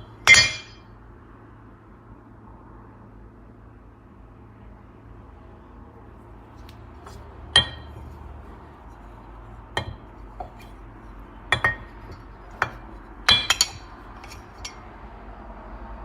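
Hard metal or glass objects clinking and knocking, as if parts or dishes are being handled and set down. One loud ringing clink comes just after the start, then a scatter of lighter clinks and taps over the second half.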